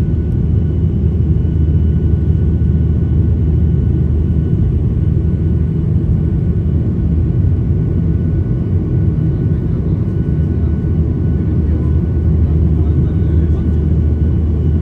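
Steady airliner cabin noise heard from a window seat in flight: a constant low rumble of engines and airflow, with two faint steady high tones over it.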